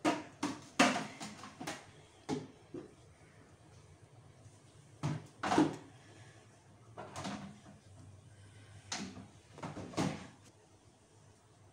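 Irregular knocks and taps of hands handling a plate and its garnish on a tabletop. A quick cluster of knocks comes in the first three seconds, then scattered single knocks and pairs later on.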